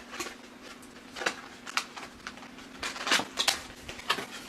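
Hands taking items out of a product box: cardboard and plastic packaging rustling, with a scattered series of sharp clicks and light knocks.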